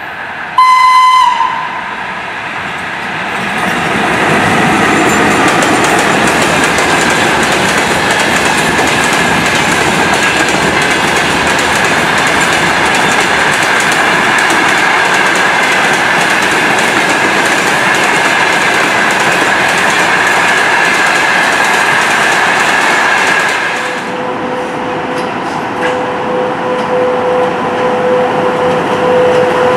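A VL80-series electric locomotive gives one short, high horn blast about half a second in, then its freight train of open wagons rolls past with a steady rumble and a thin high squeal from the wheels. About 24 s in this gives way to a steady two-pitched hum from a VL80 electric locomotive.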